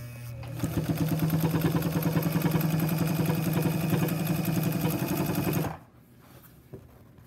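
Pfaff 130 sewing machine running a straight stitch: the motor hum comes up to speed over the first second, then a fast, even stitching rattle runs steadily until it stops abruptly nearly six seconds in.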